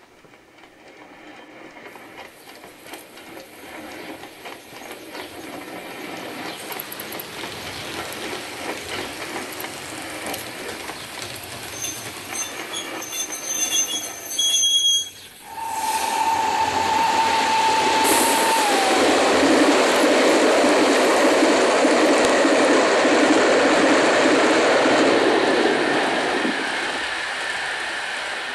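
OO gauge model trains running on the layout's track, the running sound building steadily. About halfway through it gets louder, with a steady whine for a few seconds that then drops in pitch, and it eases off near the end.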